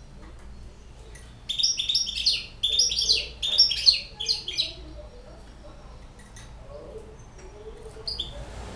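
Caged young hybrid goldfinch singing in rapid, high twittering phrases. There are two bursts of song in the first half, then a pause, and the song starts again near the end.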